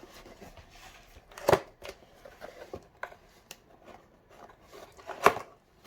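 Cardboard box being handled and opened by hand: scattered rustles and small clicks, with two louder knocks, one about a second and a half in and one near the end.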